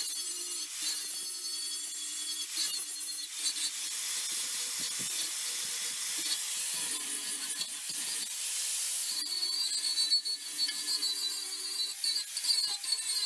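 Angle grinder running, its disc grinding on the steel tube roof frame: a steady high hiss of the disc on metal over the motor's whine.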